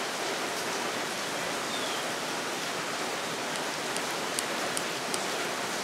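Steady hiss of rain. A few faint light clicks about four to five seconds in.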